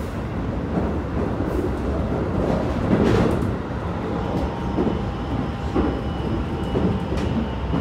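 Interior running noise of a Keikyu 1000 series EMU at speed: a steady rumble of wheels on rail, swelling briefly about three seconds in. From about four seconds in, a thin steady whine joins the rumble, from the train's Mitsubishi full-SiC VVVF traction system.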